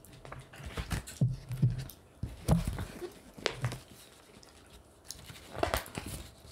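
A large picture book being opened close to a microphone, its cover and pages turned and handled. Several short paper flaps and taps, the loudest a couple of seconds in and again near the end.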